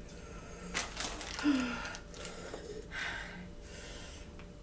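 A woman eating spicy noodles: slurping and sharp breaths drawn in through the mouth against the chili heat, in a few short bursts, with a brief hum about one and a half seconds in.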